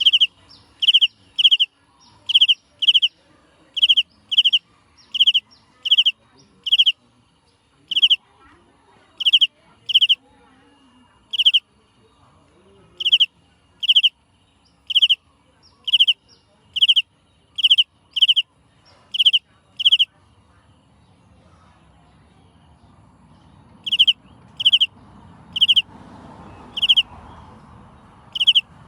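A small animal's loud, shrill call, repeated in short notes about twice a second, with a pause of a few seconds about two-thirds of the way through.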